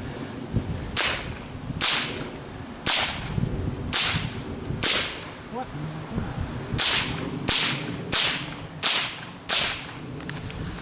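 A .22 LR rifle firing about ten single shots, sharp cracks. The first five come roughly a second apart, then after a short pause five more follow a little faster.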